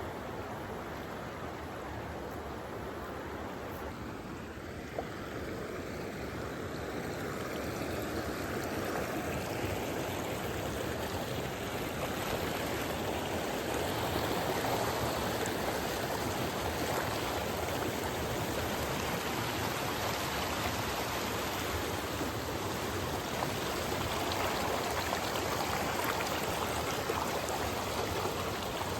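A flowing stream running with a steady rush of water, growing somewhat louder over the first dozen seconds or so and then holding steady.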